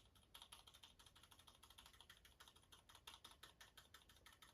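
Zeal PC Zilent V2 silent tactile mechanical keyboard switch being pressed repeatedly, faint damped key clicks at about five or six a second.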